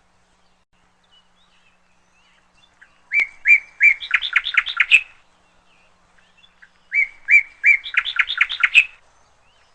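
A bird singing two repeated phrases a few seconds apart, each about two seconds long: a few separate sharp notes that quicken into a fast run of chirps.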